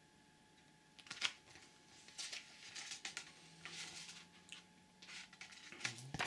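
Paper rustling and flicking as the pages of a new hardcover comic book are turned and handled: a string of short, irregular rustles.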